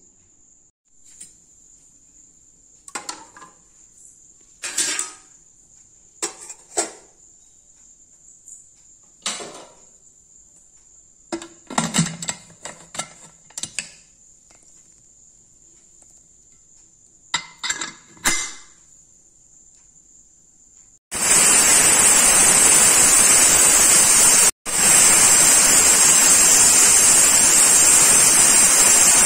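A few scattered knocks and clicks of the aluminium pressure cooker being handled, over a faint steady high tone. About 21 seconds in, the Anantha Perfect pressure cooker's weighted valve lets off its whistle, a loud, steady hiss of escaping steam that shows the cooker is up to pressure.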